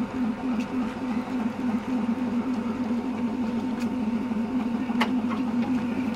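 Electric multiple-unit train standing at the platform, giving off a steady electrical hum with a regular throb, and a single sharp click about five seconds in.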